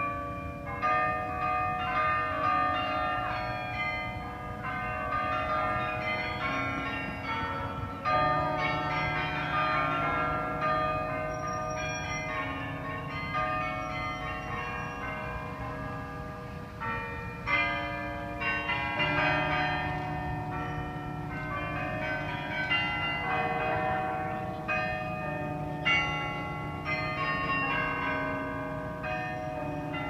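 A 25-bell carillon played by hand, its bells struck one after another in a tune, each note ringing on and overlapping the next.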